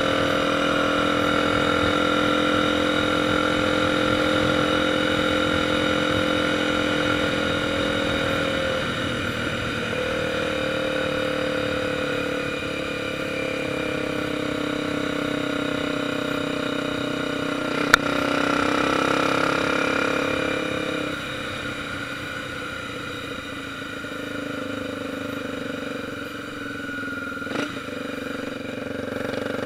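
Honda XR 250 Tornado's single-cylinder engine running steadily while riding. Its note eases off about nine seconds in and again about twenty-one seconds in, with one sharp click about eighteen seconds in.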